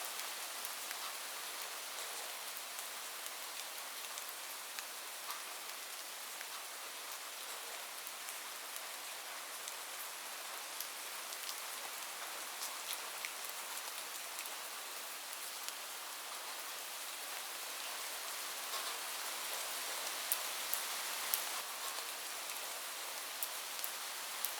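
Heavy rain falling on a roof: a steady hiss dotted with sharp ticks of single drops, swelling slightly near the end.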